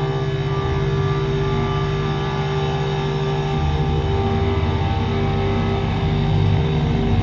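Dense electronic drone from analog and modular synthesizers: several held tones stacked over a low, buzzing bass with a fast flutter, the bass moving lower about halfway through.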